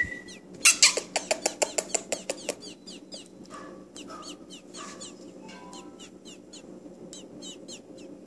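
Nestling robin begging while being hand-fed: a quick run of sharp, thin chirps about a second in, then sparser short chirps that fall in pitch.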